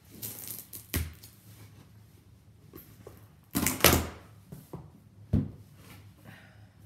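Clear plastic wrap on a cardboard box being slit with a knife and pulled off, crinkling and tearing in irregular bursts, loudest about three and a half to four seconds in. Short knocks from handling the box come about a second in and again a little after five seconds.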